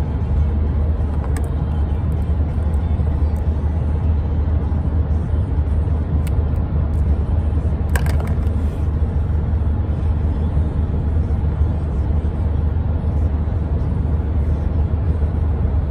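Steady low rumble of road and engine noise heard inside a moving car's cabin at highway speed.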